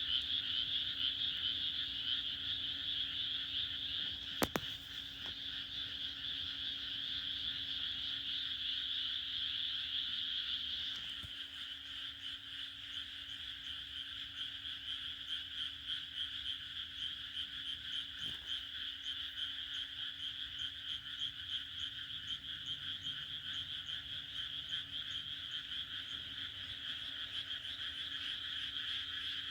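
Many frogs croaking together in a dense, continuous chorus of overlapping calls. There is one sharp click about four and a half seconds in.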